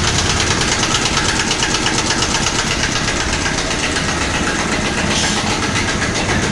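A large engine running steadily with a rapid, even throb.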